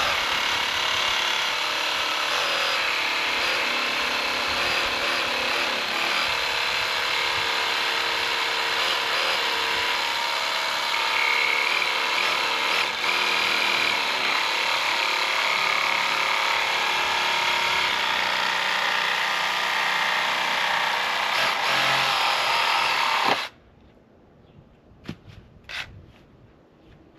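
A power tool cutting through the Milwaukee Packout mounting plate to trim it to size, running steadily under load and cutting off suddenly about 23 seconds in. A few light clicks and handling sounds follow.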